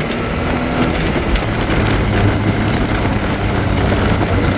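Side-by-side off-road vehicle's engine running steadily as it drives along a dirt trail, with a constant low hum and a few light knocks.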